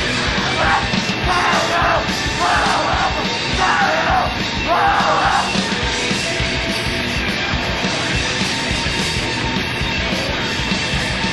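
Live hardcore punk and harsh noise music: a dense, distorted wall of sound with about five shouted vocal bursts in the first half.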